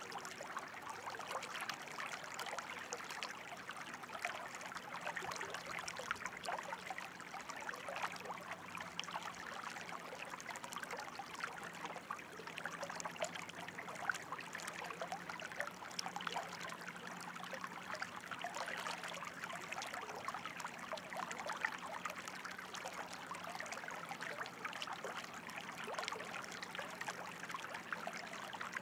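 Running water flowing and trickling steadily, a continuous stream of small splashes.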